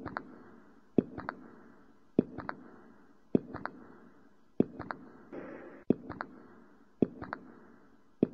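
Slow footsteps on a wooden floor, about one step a second, each a sharp click followed by two lighter ticks.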